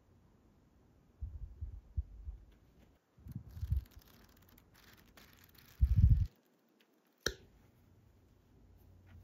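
A paper memo pad being handled and its pages fanned. Three low rumbles of air and handling on the microphone come with a light paper rustle, and a sharp click sounds about seven seconds in.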